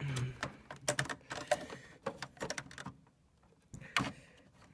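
Irregular clicks, knocks and rattles of hands handling the hard drive and its metal drive sled inside an opened Power Macintosh 7200, with a lull about three seconds in.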